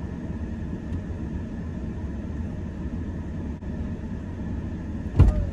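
A car's engine running, heard from inside the cabin as a steady low rumble. A single heavy thump comes near the end.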